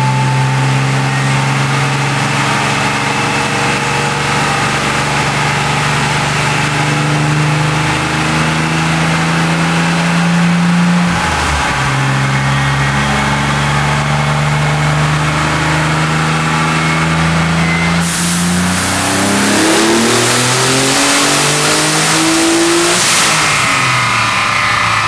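Nissan 300ZX Z32's twin-turbo 3.0 L V6 being run on a chassis dyno. The revs climb slowly, drop and pick up again about eleven seconds in, then climb slowly once more. From about eighteen seconds the car runs a much louder full power pull, the pitch rising quickly for about five seconds before it lets off and the revs fall. This is the pull that made 744.7 rear-wheel horsepower.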